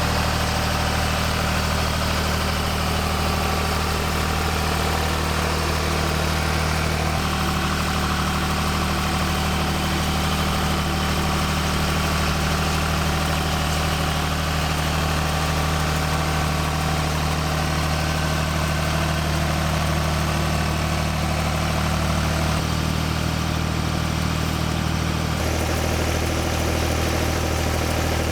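Ford tractor's engine running steadily as it pulls a hay baler through cut grass, the engine note shifting slightly a couple of times.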